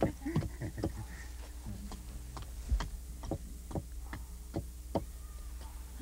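Irregular sharp clicks and light knocks of twigs and wood being handled, about two to three a second, over a low steady hum.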